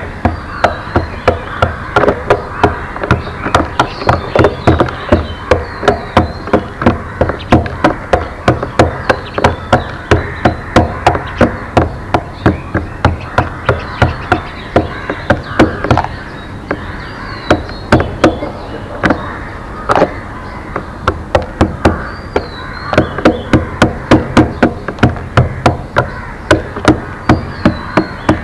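Loud, regular knocking blows, about three a second, with two short pauses past the middle. Faint bird chirps are heard above them.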